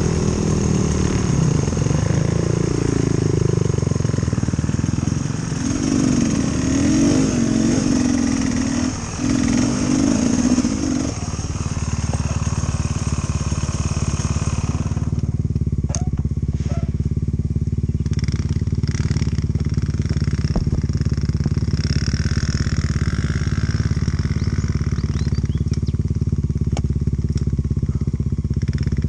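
Dirt bike engine revving up and down, then settling to a steady idle about eleven seconds in.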